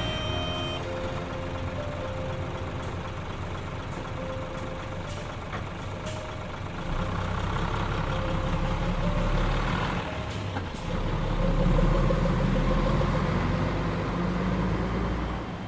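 Claas Lexion combine harvester running under load while harvesting wheat: a steady low engine drone mixed with threshing and cutting machinery noise, growing louder about seven seconds in and again around eleven seconds.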